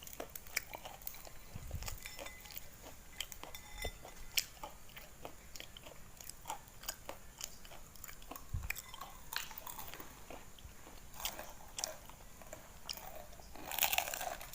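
Packaging being handled during an unboxing: a run of scattered crinkles and small clicks, with a louder rustling burst near the end.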